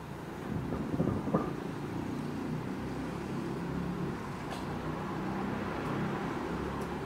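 A car passing on the road, heard through a window as a steady low engine rumble and tyre noise. Two short knocks sound about a second in.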